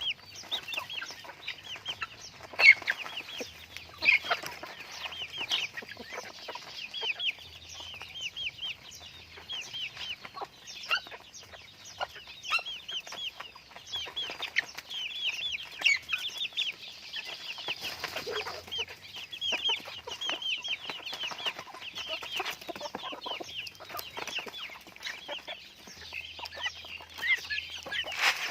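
A group of chickens calling continuously, a dense run of short, high, overlapping calls with a longer, lower call near the middle.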